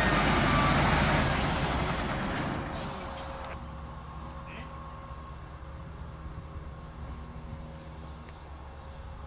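Heavy mobile crane's diesel engine running as it lifts a steel boat hull, with high thin squealing tones sliding down in the first second or so. About three seconds in there is a brief hiss, then the sound drops to a quieter, steady engine hum.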